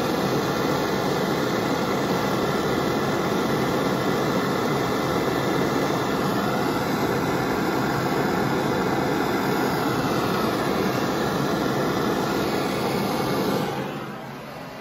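Handheld gas torch burning with a steady rushing hiss as it heats a copper pipe and brass fitting for lead-free soldering, then shut off near the end.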